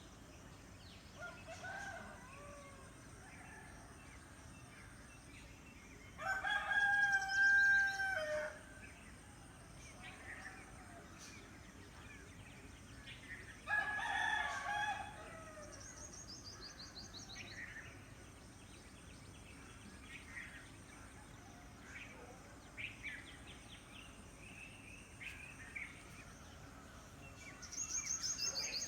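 A rooster crowing twice, each crow about two seconds long, the second ending in a falling tail, with small birds chirping and giving quick high trills between the crows.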